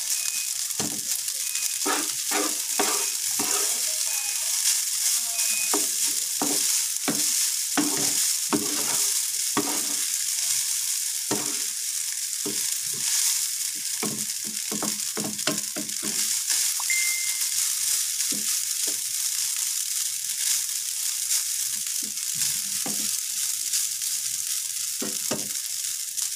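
Cold leftover rice frying in a nonstick pan with a steady sizzle, broken by repeated scrapes and taps of a plastic slotted spatula against the pan as the rice is stirred and turned. The scraping is busiest in the first half and thins out later.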